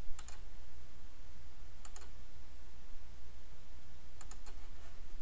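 Light computer mouse clicks: a couple at the start, a couple about two seconds in, and three or four close together about four seconds in. A steady low hum and hiss lies under them.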